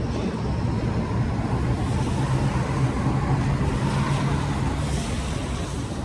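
Engine rumble of a passing motor vehicle: a steady low hum that stops about five seconds in.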